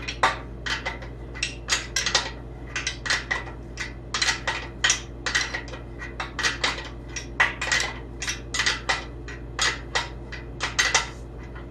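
Steel tools and chassis parts clinking and tapping against each other: an irregular run of sharp metallic clicks and light taps, several a second, as the front suspension is worked apart.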